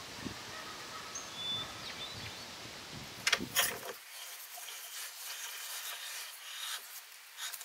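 Outdoor hiss with a few short bird chirps, and a couple of sharp clicks at about three seconds. About four seconds in it switches to quieter workshop sound: light metallic clicks and scrapes as the antique dagger's bent tang is worked in the jaws of a steel bench vise to straighten it.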